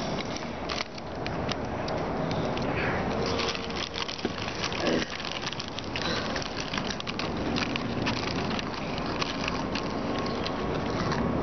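A steady crackle and rustle with many small clicks: foil snack bags crinkling as they are handled, and crunchy Cheetos being chewed.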